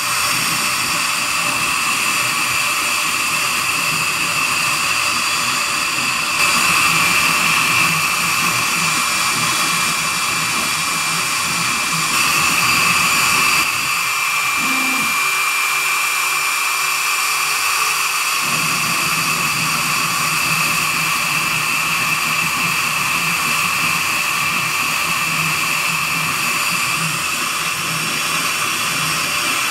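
CNC router spindle running at high speed with a steady high whine while a small tapered carving bit mills a relief into wood, a continuous cutting noise. The tone shifts slightly a few times.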